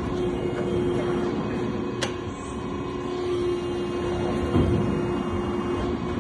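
Hydraulic press brake running: a steady hum from its hydraulic power unit, with a sharp click about two seconds in and a thump about four and a half seconds in.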